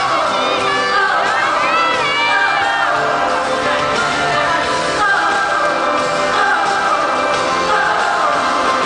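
Live band playing a song in a large hall during a sound check, with singing, and fans shouting and whooping over it in the first few seconds.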